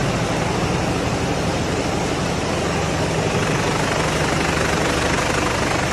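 Vortex vegetable washing machine running on a processing line: a steady, even rush of churning water and machinery over a constant low motor hum.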